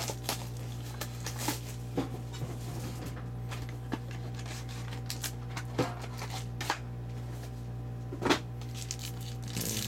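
Scattered light clicks and taps of a trading-card box and its cardboard packaging being handled as it is opened, over a steady low electrical hum.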